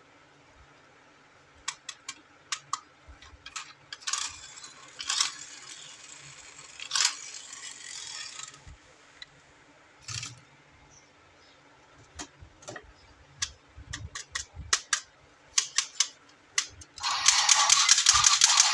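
Plastic toy parts and packaging clicking, tapping and rustling as they are handled, with a stretch of rustling hiss partway through. Near the end a battery-powered toy starts up with a loud, fast, steady rattling buzz.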